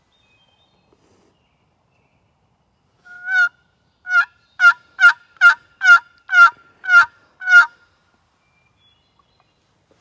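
Hand-worked wooden box turkey call: one short note, then a run of eight hen yelps, each breaking from a high note to a lower one, about two a second, calling to draw a gobbler.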